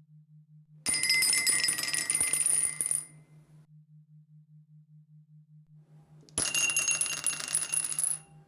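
Dice rattling and clattering twice, each time for about two seconds, with clicks and a bright ringing edge.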